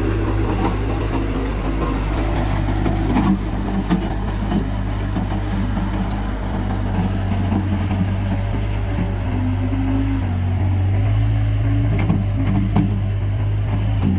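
Bobcat S130 skid steer loader's diesel engine running steadily under working load, with a few short knocks.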